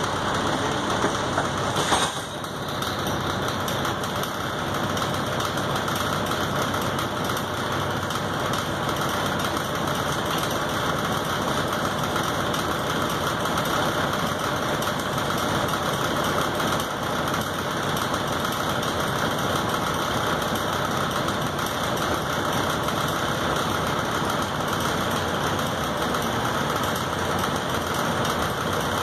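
Neoplan AN460A articulated bus's diesel engine running steadily, heard from inside the passenger cabin, with a single sharp knock about two seconds in.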